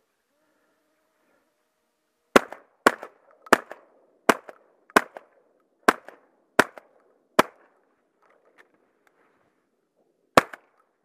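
Shotgun firing in rapid succession: eight shots about two-thirds of a second apart, then a ninth about three seconds later, each blast followed by a short ringing tail.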